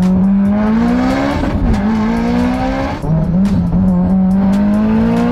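Mitsubishi Lancer Evolution X's turbocharged four-cylinder engine accelerating hard, heard from inside the cabin. Its pitch climbs steadily, falls back about a second and a half in and again about three seconds in, then climbs again.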